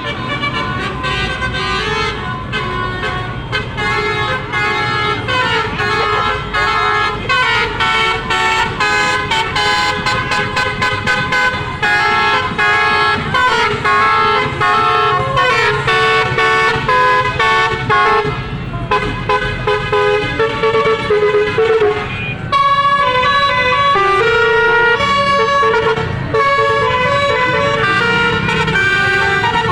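Bus 'telolet' horn, a multi-tone air horn, playing a fast tune of short, changing notes over and over. About two-thirds of the way through the tune changes to longer held notes. A low rumble runs underneath.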